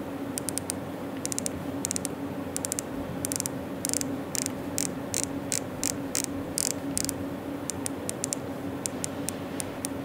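Rotary volume knob on an RK Royal Kludge S98 mechanical keyboard turned by hand, its detents giving many small sharp clicks in quick, uneven runs, over a steady hiss and low hum.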